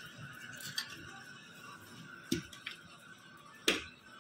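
A few short, sharp clinks of a metal spoon against cookware on the stove; the loudest is near the end. Faint steady background music plays under them.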